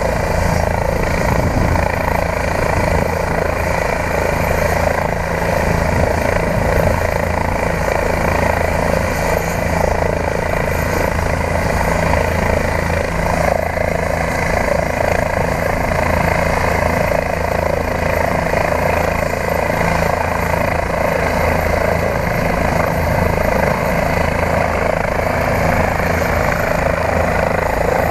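Two turbine helicopters, a Eurocopter EC135 and a Bell 407, running on the ground: a loud, steady rotor and turbine sound that holds level throughout.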